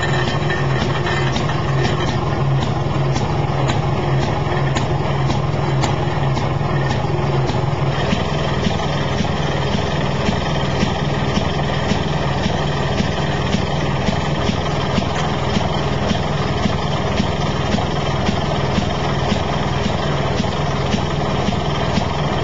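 Maytag washing machine's two-stroke gasoline engine running steadily, with a regular sharp ticking over its drone that grows quicker and more even about a third of the way in.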